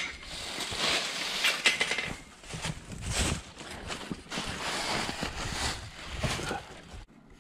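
Footsteps crunching and rustling through a thick layer of dry fallen leaves, a string of steps one after another.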